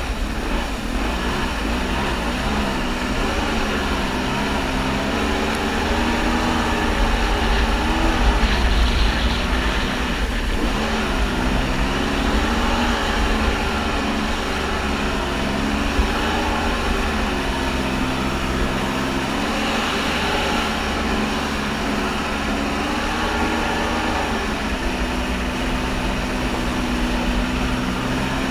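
Kawasaki JS550 stand-up jet ski's two-stroke twin engine running under way, its pitch repeatedly rising and falling with the throttle, then holding steady near the end, over a low rumble of water and wind.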